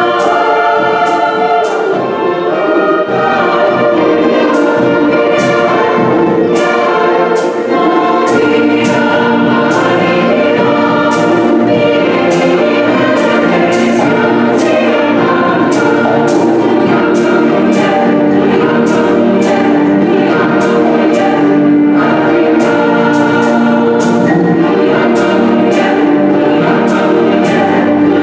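Large mixed choir singing with a full symphony orchestra and concert band, sustained strings and winds under the voices, with percussion strokes recurring every fraction of a second.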